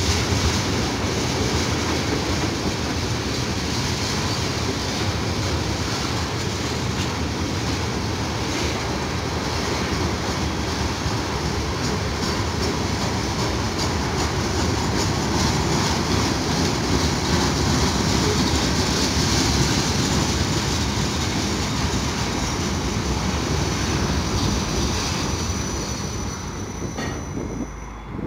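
Freight train of tank cars and hopper cars rolling past at close range: a steady rumble and rattle of steel wheels on rail, with a rhythmic clatter as the wheels cross the rail joints. It dies away in the last couple of seconds.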